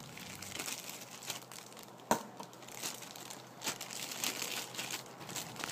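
Clear plastic wrapping crinkling and rustling as it is handled and pulled off a sheathed knife, with one sharp click about two seconds in.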